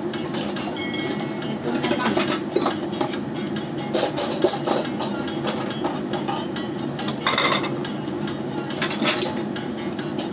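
Hot oil sizzling and crackling steadily around sticky-rice spring rolls (turon) frying in a wok, with a few louder crackles.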